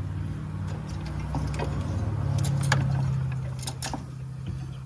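Light clicks and rattles of a spark plug wire being pulled loose and worked out from the back of an engine, over a steady low hum that swells about halfway through.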